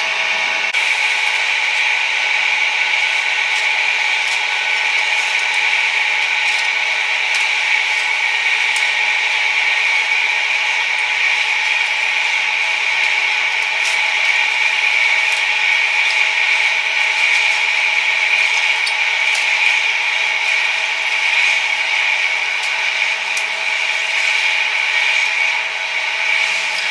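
A steady, high-pitched mechanical whine of several fixed tones from a small motor, with a few faint ticks scattered through.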